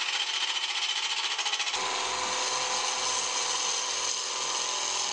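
A turning tool cutting into a spinning segmented maple and walnut blank on a wood lathe, turning it into a cylinder: a steady, rough shearing hiss with a fast flutter. About two seconds in the sound changes abruptly, and a steady hum joins under the cutting.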